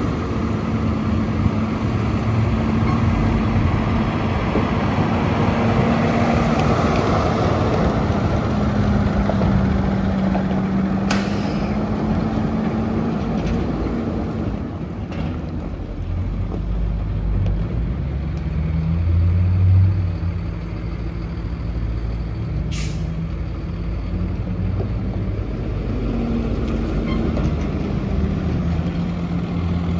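Diesel engine of a 2009 Peterbilt 335 single-axle dump truck running as the truck drives slowly over gravel, its pitch shifting and swelling briefly about two-thirds of the way through. Two short, sharp air hisses from the air brakes stand out, roughly twelve seconds apart.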